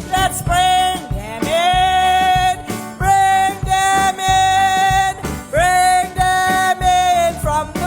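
Song with a singing voice holding long melody notes over a country-style instrumental backing.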